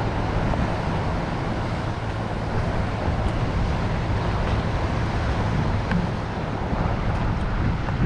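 Wind buffeting the microphone over the wash of waves, with a low steady hum underneath.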